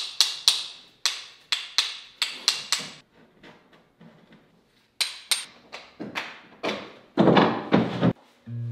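A run of sharp knocks and taps in uneven clusters, falling quiet for a couple of seconds about three seconds in, then resuming with a few heavier, longer knocks near the end. Acoustic guitar music comes in just at the close.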